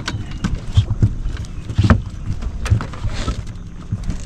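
Irregular knocks and low thumps from people moving about and handling gear on a bass boat's deck, the loudest about two seconds in.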